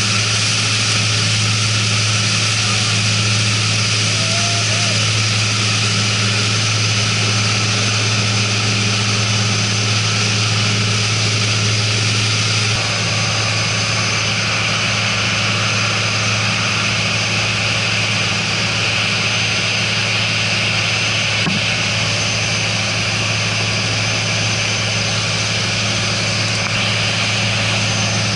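Boat engines running steadily under way, a constant low drone, with the rush of water and wind over it.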